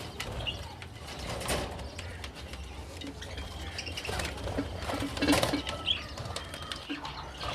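Caged pet birds chirping here and there, with a couple of short spells of wing fluttering or rustling, one near the start and a louder one past the middle.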